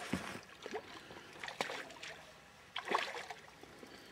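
Quiet lapping and splashing of water around a small fishing boat as a hooked fish thrashes near the surface, with scattered light knocks and clicks from the boat.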